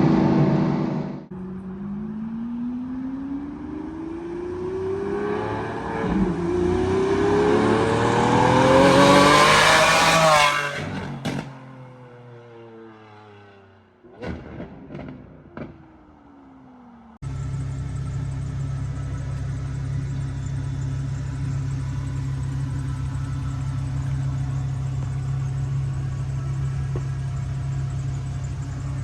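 Lamborghini Aventador SVJ's V12 with a titanium double-X-pipe exhaust accelerating hard, its pitch climbing in two long pulls to a high shriek, then falling as the throttle lifts, with a few sharp exhaust pops and crackles. After a cut, the engine runs at a steady idle.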